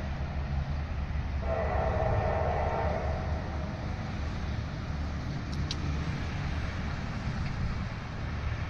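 Norfolk Southern freight locomotive horn sounding one long chord blast from about one and a half seconds in until about three seconds, over a steady low rumble.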